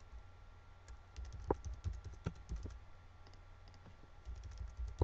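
Computer keyboard being typed on: faint, irregular key clicks, several a second in spurts.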